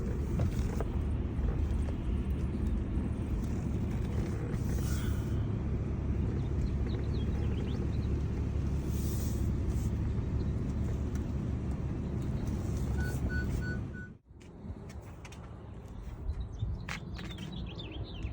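Steady low road and engine rumble inside a 2016 Honda Accord's cabin while driving. It cuts off abruptly about fourteen seconds in, followed by quieter sound with a few sharp clicks.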